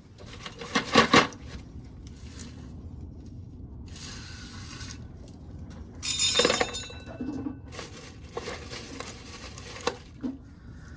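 Intermittent clatter and knocks of hard objects being handled, with metallic clinks; the loudest, about six seconds in, rings on briefly.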